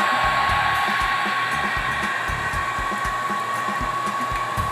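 Heat gun blowing steadily, with a steady whine from its fan motor. It is softening the leftover battery adhesive on a laptop's aluminium case for prying.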